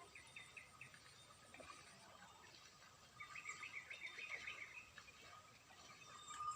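Faint outdoor ambience with a small bird giving quick runs of short chirps, once near the start and again around the middle.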